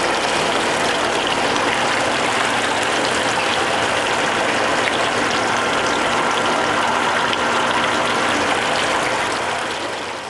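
Grape juice from Chardonnay grapes pouring in streams out of a wine press and splashing into the stainless-steel tray below: a steady gush with a faint steady hum under it, fading out near the end.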